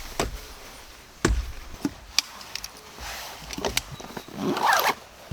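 Sharp wooden cracks and knocks at irregular intervals, about six in all, with a short rustle near the end.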